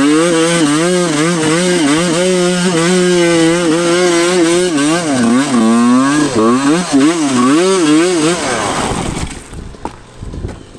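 Two-stroke dirt bike engine revving hard, its pitch swinging up and down as the throttle is worked over rough ground, then falling away and going much quieter near the end.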